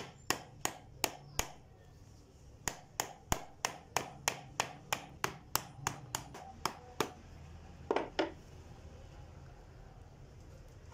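Light hammer taps on the hard woody shell of a bael fruit (wood apple), which is being turned between blows to crack it open. The taps come about three a second: a short run, a brief pause, a longer run, then a last double knock.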